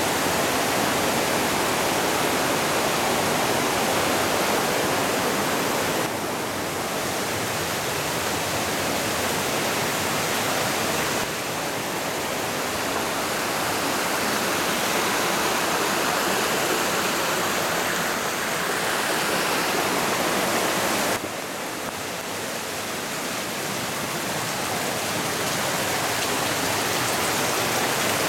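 Torrential rain and rushing floodwater: a dense, steady wash of water noise, stepping down a little in level abruptly about six, eleven and twenty-one seconds in.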